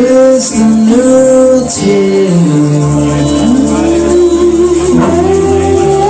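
Live rock band playing: electric guitars, bass and drums, with singing over them. The bass comes in about halfway through.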